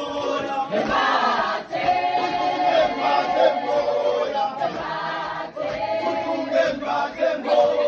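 A mixed group of men and women singing a church hymn together in harmony, unaccompanied, in short rhythmic phrases.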